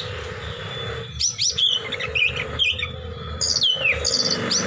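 Oriental magpie-robin (kacer) singing in quick phrases of sharp, sliding whistles, several of them falling steeply, over a steady low hum.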